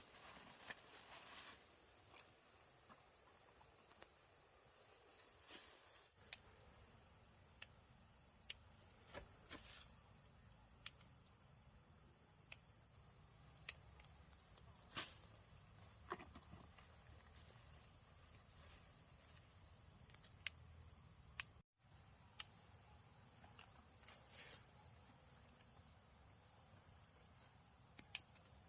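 Faint steady high-pitched trilling of insects such as crickets, with scattered sharp clicks every second or two.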